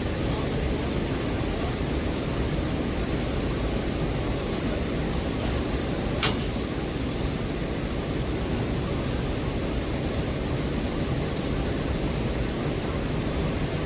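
Steady rushing noise, heaviest in the low end, with one sharp click about six seconds in.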